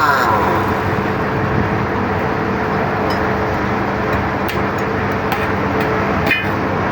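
Steady roadside traffic noise with a constant engine hum underneath, broken by a few faint clicks.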